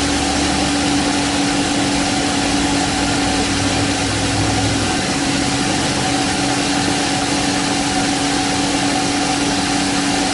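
Old factory 12-volt RV roof vent fan running at its one speed on a full 12 volts: a steady rush of air with a steady two-tone hum, heard in the small enclosed shower it vents. A low rumble underneath fades about five seconds in.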